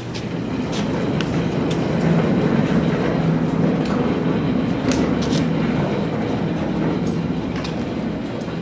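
A heavy machine's engine running steadily, swelling up over the first couple of seconds and easing slightly near the end, with scattered sharp metallic clicks and clanks over it.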